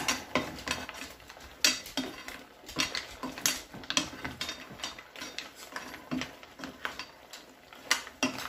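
Wooden spatula stirring mussels in their shells and shrimp in a frying pan: irregular clacks and scrapes of shell against shell and the pan, a few sharper knocks among them.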